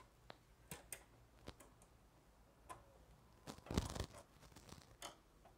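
Faint, scattered metallic clicks and taps of small screws and a screwdriver against the sheet-metal chassis of an HP LaserJet Pro 400 M401A printer as the formatter board's screws are put back and fastened, with a louder cluster of taps about three and a half seconds in.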